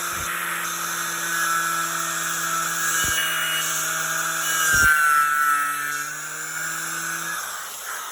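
Milwaukee 11-amp angle grinder with a twisted-knot wire wheel running, stripping paint and rust off a metal door, with a steady high motor whine. The whine sags briefly about five seconds in and cuts off about seven seconds in.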